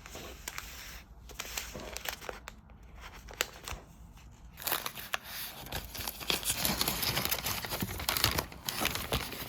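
Paper or plastic food wrapping crinkling as it is handled: a few scattered crackles at first, then a dense, continuous crinkling and rustling from about halfway through.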